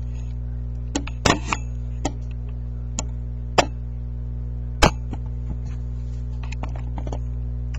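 Steady low electrical hum, with a handful of short sharp taps and knocks in the first five seconds.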